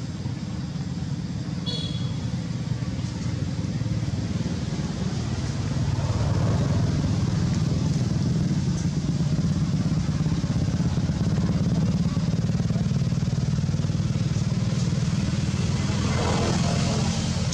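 A steady low engine drone, like a motorcycle running nearby, with a brief high chirp about two seconds in.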